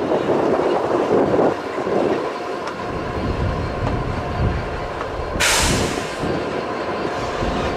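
Class 60 diesel locomotive's eight-cylinder Mirrlees engine running as the locomotive creeps along the yard tracks on its own: a low rumble with a faint steady whine. About five and a half seconds in there is a short hiss of air lasting about half a second. Wind buffets the microphone during the first second or so.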